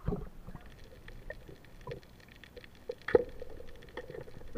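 Muffled underwater sound from a submerged camera: a brief splash as it goes under, then scattered faint clicks and crackles, with one sharper knock about three seconds in.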